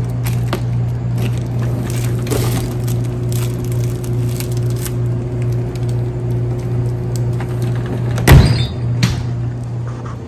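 Glass-door drinks refrigerator being opened and handled, with small clicks and rattles of the door and bottles over a steady low hum. About eight seconds in comes a loud thump as the glass door swings shut, then a smaller knock.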